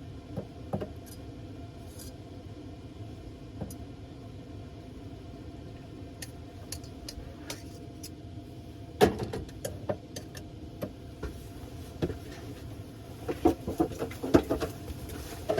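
Scattered clinks and clatter of dishes and utensils being handled, over a steady low hum; the loudest clink comes about nine seconds in, and a quick run of them near the end.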